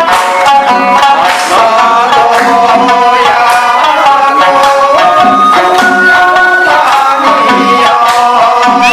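Background music: a loud instrumental track with a melodic lead over a steady drum beat.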